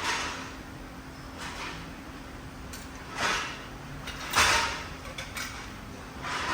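A series of short scraping or sliding sounds, five in all, the loudest a little past halfway, over a faint steady hum.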